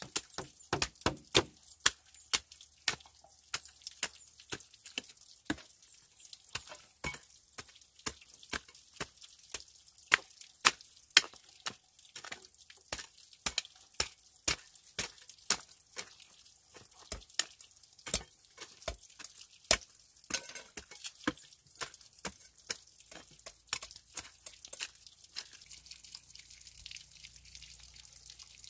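A quick, irregular run of sharp taps or knocks, several a second, thinning out near the end.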